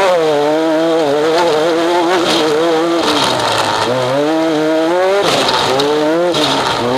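Engine of an off-road desert race vehicle under hard driving. The revs climb and fall repeatedly as the throttle comes on and off, with a sudden drop about five seconds in before they climb again.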